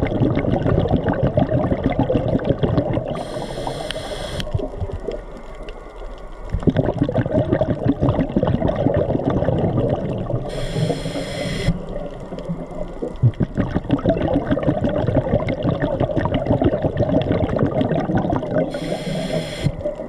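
Underwater breathing through a scuba regulator: three hissing inhales about seven and a half seconds apart, each followed after a short pause by a long bubbling rumble of exhaled air, with a continuous crackle underneath.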